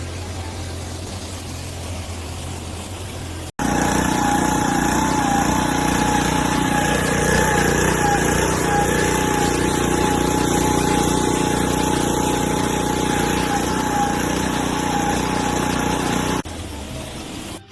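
A machine or engine running steadily, with a high whine. It jumps abruptly louder about three and a half seconds in and drops back near the end.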